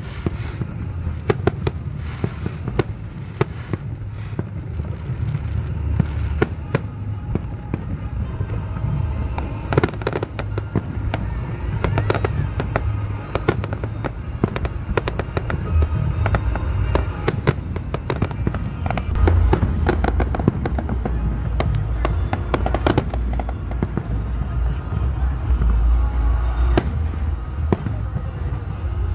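Fireworks display: a dense run of sharp bangs and crackles over a continuous low rumble of booms, the rumble strongest a few seconds before the end.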